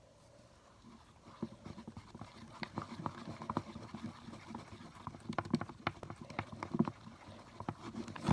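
Wooden popsicle stick stirring glue and food dye in a bowl, with irregular light knocks and scrapes against the bowl, a few a second, starting about a second in.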